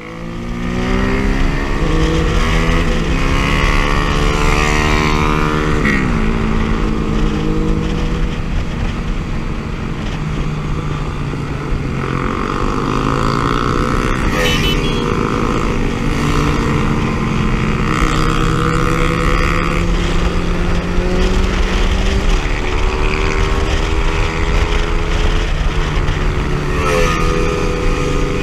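Motorcycle engine heard from the rider's own bike at speed, accelerating: its pitch climbs and drops back at each gear change, several times, with a steadier stretch of cruising in the middle. Wind rush on the microphone underlies it.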